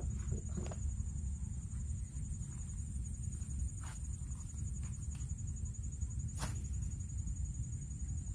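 Outdoor ambience: a steady high-pitched insect buzz over a low rumble, with a few faint clicks, about a second, four seconds and six seconds in.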